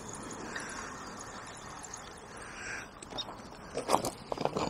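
Steady soft outdoor background with faint distant birdsong, then a quick series of sharp knocks and clatters near the end as fishing tackle is handled at the bank.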